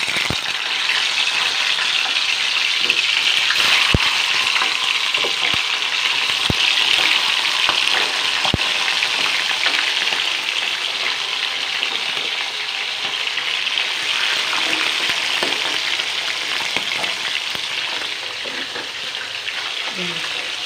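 Whole fish frying in hot oil in a metal pan: a steady sizzle with a few sharp pops in the first half, easing slightly near the end.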